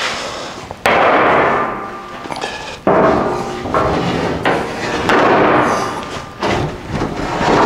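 A long steel truck frame rail clanging as it is shifted and set down on another rail and sawhorses: a series of five or six sharp metal impacts, each ringing on for a second or more.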